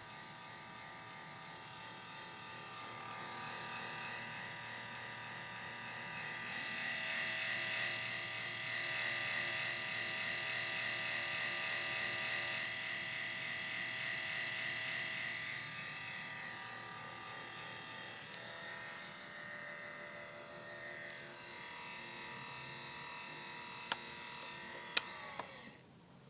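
MSI CX623 laptop making a very loud whirring whine made of several steady tones, swelling over the first several seconds and easing off later. Near the end come a couple of sharp clicks, then the whine falls in pitch and cuts out.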